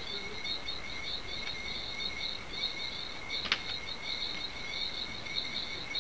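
Insects chirping in a steady, rapidly pulsing trill, with one sharp click a little past halfway.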